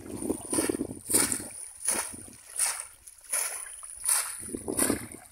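Shallow water splashing as two people wade and thrust bamboo polo fish traps down into it, one splash about every three quarters of a second.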